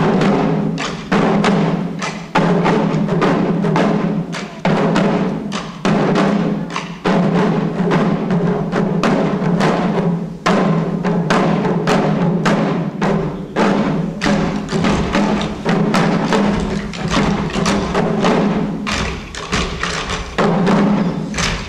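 Chest-slung taiko drums of a troupe of shishi odori deer dancers, beaten together with sticks in a fast, uneven run of sharp strokes, a couple or more a second.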